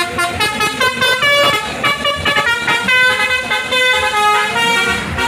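A coach's multi-tone "telolet" musical air horn playing a quick tune of short notes that change pitch.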